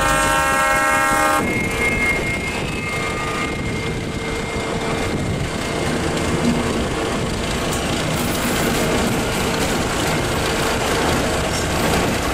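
ČKD T669 (class 770) diesel locomotive passing close by, its six-cylinder diesel engine running as a dense, steady mechanical noise with a faint steady tone through it.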